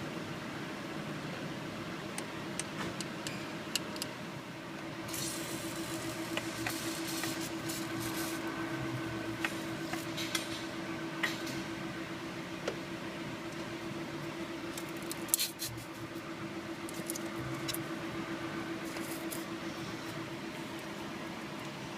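Scattered metallic clicks and clinks of hand tools, a ratchet and socket working small bolts, in short runs of ticking, over a steady hum.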